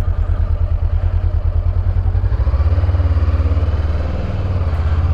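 A vehicle engine idling with a steady low throb. About two and a half seconds in, a heavier engine note joins and stays.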